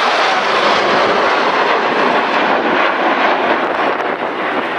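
A formation of BAE Hawk jet trainers flying a display, their Adour turbofans making a steady rushing jet noise.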